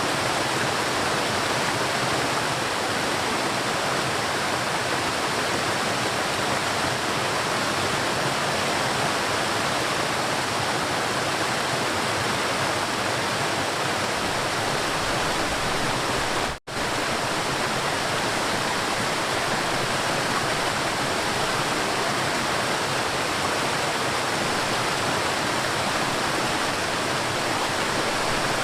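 River water rushing steadily, an even constant wash of sound, cut by a split-second dropout about two-thirds of the way through.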